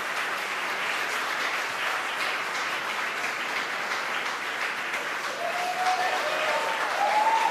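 A crowd applauding and cheering, with a few raised voices calling out over the clapping near the end. The applause greets stage separation and the ignition of the Falcon 9 second stage's engine.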